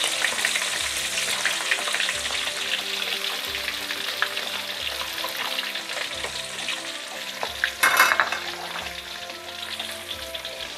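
Flattened pieces of boiled horse-meat dendeng deep-frying in oil in a wok: a dense, steady crackling sizzle, with a short louder hiss about eight seconds in. The heavy bubbling shows that the meat still holds moisture and is not yet cooked through.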